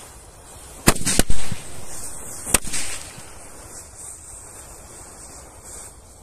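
Small Diwali firecrackers bursting as a burning matchstick chain reaches them: three sharp bangs within the first three seconds, with a hissing rush of flaring match heads between them.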